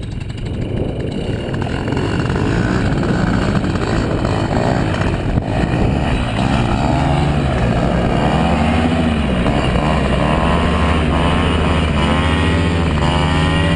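Paramotor trike engine and propeller running loudly, revved up and down several times, then held at a steady high throttle near the end.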